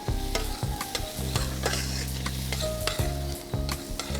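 A spoon stirring diced vegetables frying in a pan with a little oil: a steady sizzle with repeated clicks and scrapes of the spoon against the pan.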